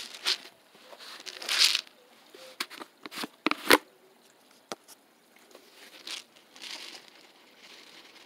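Irregular close-up handling noise: short rustling bursts and a few sharp clicks, loudest about a second and a half in and again around three and a half seconds in, then fainter rustling.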